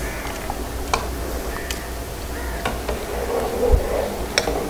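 Wood cooking fire crackling, with a few sharp isolated pops over a steady low rumble.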